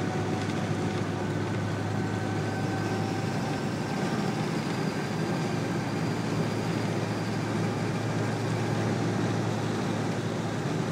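Road noise inside the cab of a 1987 Toyota 4Runner cruising at about 72 mph on a concrete road with the windows up: a steady hum of 285/75/16 TreadWright Guard Dog mud-terrain retread tyres, with a faint whine over a low drone.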